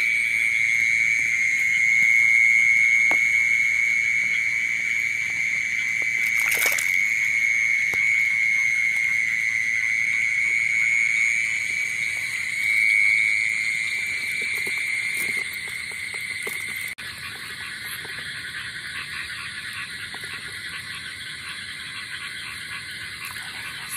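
Dense chorus of frogs calling without a break, a steady high trill, as after heavy rain. A single brief knock comes about seven seconds in. Past the middle the chorus drops and becomes more spread out.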